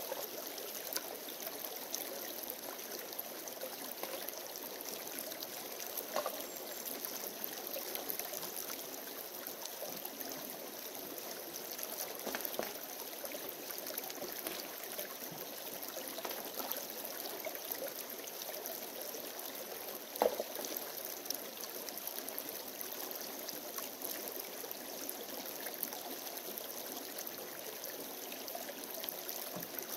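Shallow rocky creek running steadily over stones, broken by a few brief splashes and knocks as the creek bed is worked by hand and tool, the loudest about two-thirds of the way through.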